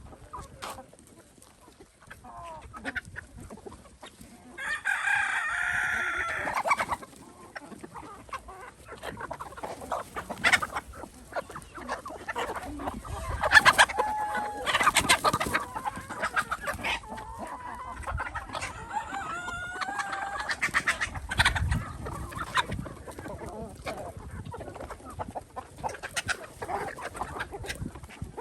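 A flock of chickens clucking, with a rooster crowing once about five seconds in for roughly two seconds. Sharp clicks are scattered among the calls.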